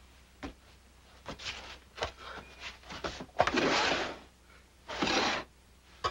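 Scuffs, knocks and rustling of a person crawling on hands and knees across a rug-covered floor, with two longer scraping bursts in the second half.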